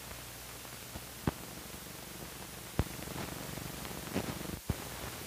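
Old film soundtrack running out past the end of the programme: steady hiss and low hum broken by a few sharp pops and clicks, two of them much louder than the rest.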